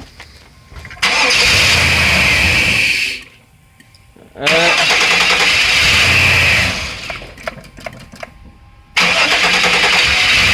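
Chevrolet Tahoe engine cranking on the starter three times, each crank about two seconds long, without catching: the truck will not start.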